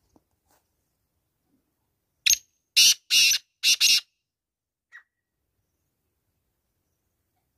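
A male black francolin giving its territorial call: a short opening note, then four loud, harsh, rasping notes in quick succession over about a second, with a faint extra note shortly after.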